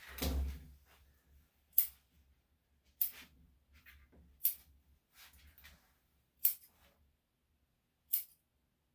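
Steel grooming scissors snipping the fur around a small dog's front paw: five sharp single snips, one every one and a half seconds or so. A short, soft low bump comes right at the start.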